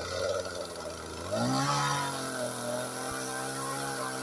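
Two-stroke chainsaw engine running, revving up about a second in and then holding steady at high speed.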